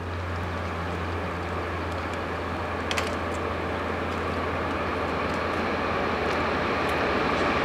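Diesel locomotives of an approaching freight train, a steady low engine drone growing gradually louder as the train nears.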